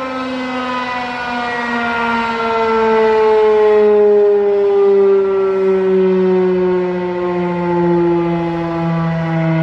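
Federal Signal Model 5 rotating outdoor warning siren, its pitch falling slowly and steadily as it winds down. The sound swells and fades every couple of seconds as the rotating horn sweeps past.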